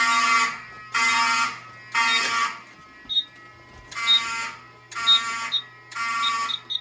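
Fire alarm horn sounding the temporal-3 evacuation pattern: three half-second blasts about a second apart, a pause, then three more. Faint short high beeps come between the blasts.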